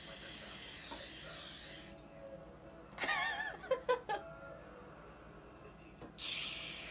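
Aerosol cooking spray hissing as it greases a metal cake pan, in two bursts: about two seconds at the start and about a second near the end. Between them comes a short, wavering high-pitched child's voice.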